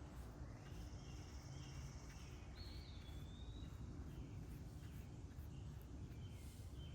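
Songbirds chirping faintly in short, scattered calls, one longer call rising and then falling about three seconds in, over a steady low outdoor rumble. A thin high insect-like buzz holds for about a second and a half early in the stretch.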